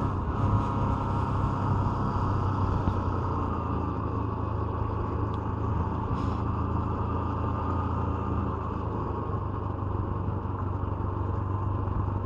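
Motorcycle engine running at a steady pitch while riding along a street, with road and wind noise from the moving bike.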